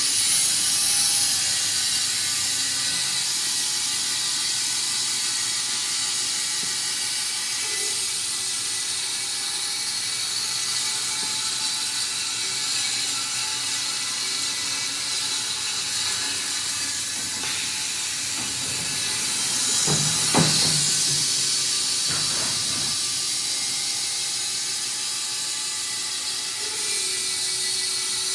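Wood-Mizer industrial band sawmill running, a steady high hiss and whine from the machine, with a brief clunk about two-thirds of the way through.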